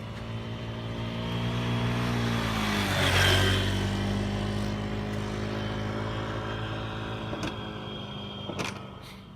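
A motor vehicle approaching and passing close by. Its engine note drops in pitch as it goes past about three seconds in, then fades away. Two short sharp clicks near the end.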